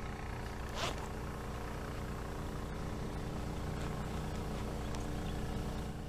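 Steady low hum with several held tones, like a distant engine or motor running, and one faint short crack a little under a second in.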